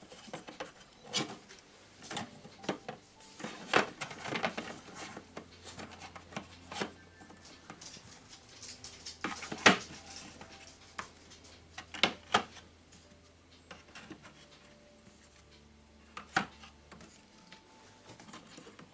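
Eggshells clicking and tapping against the plastic tray and dividers of a Brinsea Octagon 10 incubator as eggs are set in by hand one at a time. Irregular light clicks, the sharpest about halfway through.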